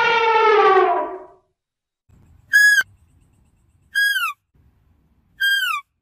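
An elephant trumpeting: one loud call that falls slightly in pitch and ends about a second and a half in. After a short pause come three short, high calls, each sliding down in pitch, spaced about a second and a half apart.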